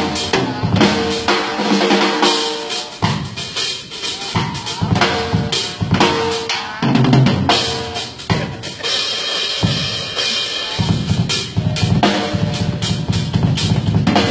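Music carried by a drum kit played fast and busy: a steady stream of snare, bass drum and cymbal hits, with some held pitched notes underneath.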